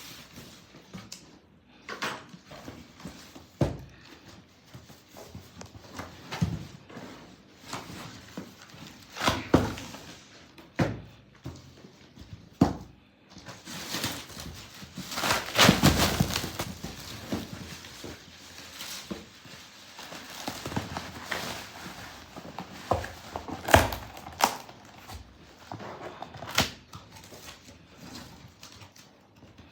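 Unboxing a packaged comforter: scattered knocks and thuds from handling the package, with a louder stretch of rustling about halfway through.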